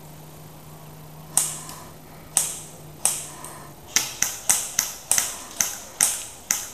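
Airsoft guns firing: three single sharp cracks about a second apart, then a quicker string of about ten shots, roughly four a second.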